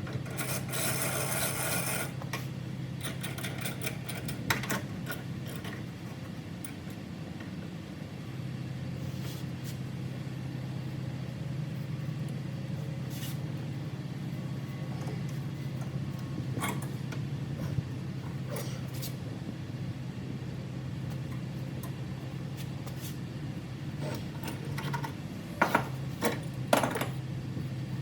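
Hand tools working on metal exhaust parts: scattered knocks and scraping, with a harsh scraping burst in the first two seconds and a few loud knocks near the end, over a steady low hum.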